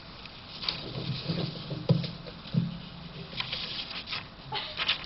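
Paper rustling and light knocks picked up by a podium microphone as sheets of paper are handled.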